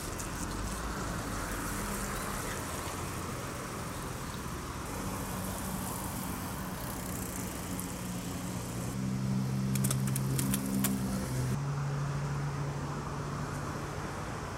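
Road traffic passing on a bridge: steady tyre and engine noise, with a vehicle's low engine hum building about a third of the way in and loudest a little past the middle before it fades, and a few brief clicks at its peak.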